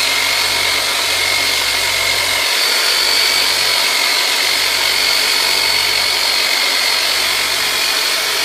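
Electric massage device, the chiropractor's "turbinator", running steadily against the hip muscles, with a high whine over a hiss.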